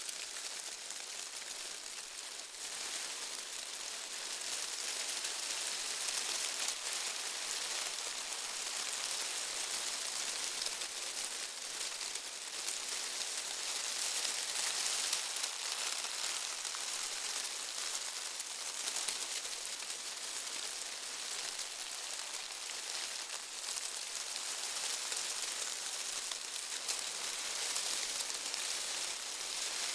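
Dry autumn leaves rustling: a steady, dense crackling hiss, mostly high-pitched, that grows a little louder over the first few seconds and then holds.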